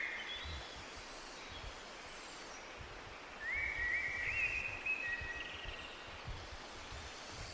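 Tropical birds calling over the steady rushing hiss of a jungle waterfall. About three and a half seconds in comes a quick run of short rising whistled notes, with a few thinner, higher calls near the start.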